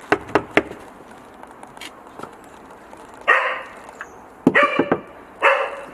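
Three sharp knocks, then a dog barking three times about a second apart, starting about three seconds in.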